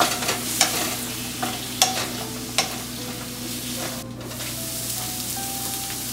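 Taro stem and spices being stirred in a pan of hot mustard oil, with several sharp scraping knocks in the first couple of seconds. A steady low sizzle runs underneath throughout.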